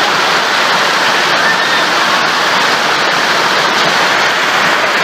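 Torrential, wind-driven rain and hail of a severe thunderstorm pouring down in a loud, steady wash of noise.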